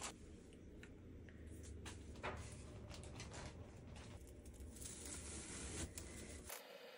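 Faint rustling of wood-shaving bedding with scattered light clicks and knocks as cage items are set in place by hand.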